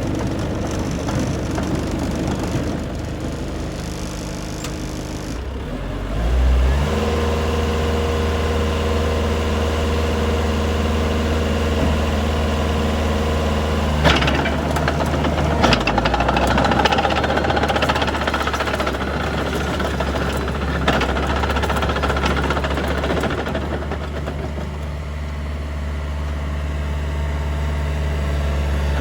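Diesel engine of a Mitsubishi BD2J bulldozer running steadily, speeding up about six seconds in and easing back toward the end. There is a single sharp clank about halfway through.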